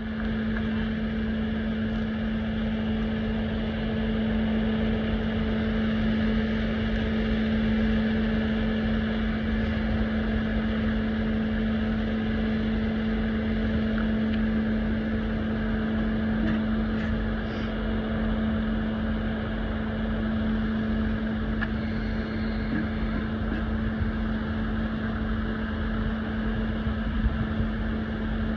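Vehicle engine idling with a steady, unchanging hum.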